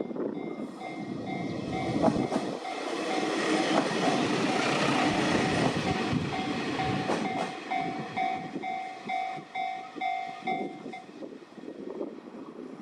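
Japanese level crossing bell ringing in an even repeated ding, about two strokes a second, as a Sanriku Railway train passes over the crossing. The train's rumble swells to its loudest about four to six seconds in and then fades. The bell stops about eleven seconds in.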